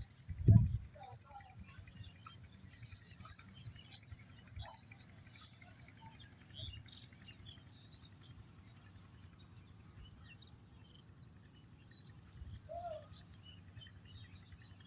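Rural outdoor ambience: a steady high insect drone, with a bird repeating a short, rapid run of notes every second or two. A low thump comes just after the start.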